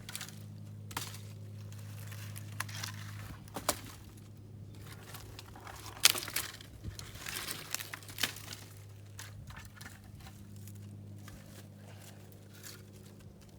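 Scattered crackling and rustling with a few sharp clicks, the loudest about six seconds in, over a faint steady low hum.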